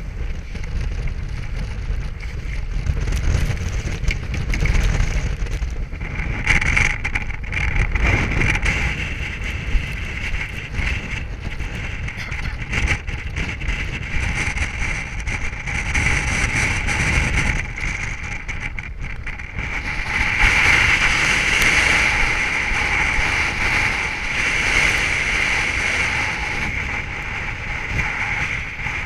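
Strong wind buffeting the microphone of a board-mounted action camera, rumbling in gusts, with a steady high whistle that grows louder about two-thirds of the way through.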